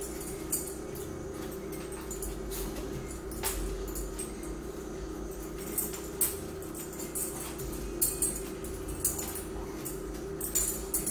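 A dog whining, with scattered light clicks and a steady low hum beneath.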